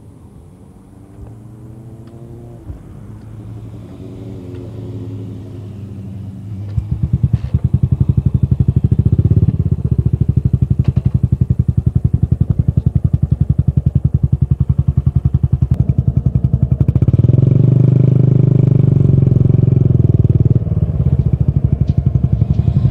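Yamaha SR400's single-cylinder four-stroke engine through a Goods tapered cone slip-on muffler. It is faint at first, with rising revs. From about seven seconds in it is loud and close, a steady beat of separate exhaust pulses that swells for a few seconds near the end.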